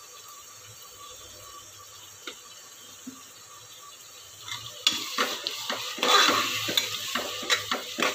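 Onions, tomatoes and spices sizzling softly in a pressure cooker pot. About five seconds in, a metal spoon starts stirring, scraping and clinking against the pot.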